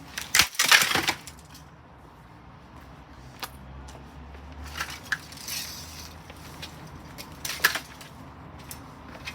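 A thrown plastic fan heater crashing to the floor with a loud clatter about half a second in, followed by a few lighter knocks and rattles of its loose, broken parts.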